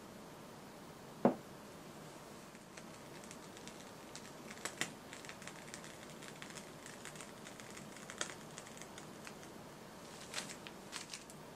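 One sharp knock about a second in, then faint, irregular small clicks and crackles, a few louder near the end, as a glass of blended iced mocha drink is topped with whipped cream.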